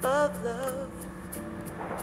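Music playing through a JBL GO small portable Bluetooth speaker: a short wavering melodic phrase at the start over a steady ticking beat.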